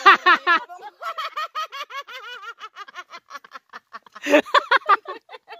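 Women laughing: a long run of quick, high-pitched giggling pulses, then a louder outburst of laughter about four seconds in.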